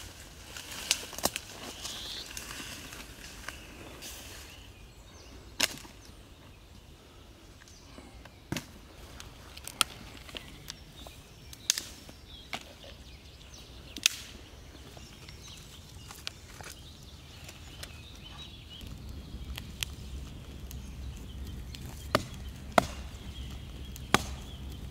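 Dry sticks and twigs snapped by hand: single sharp cracks every few seconds, the loudest near the end. Leaves and branches rustle during the first few seconds.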